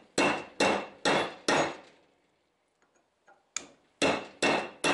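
Hammer blows on a steel socket extension, driving tight press-fit wheel studs into a truck's front rotor hub, each blow a sharp metallic clank with a short ring. There are four blows in quick succession, a pause of about two seconds, then three more.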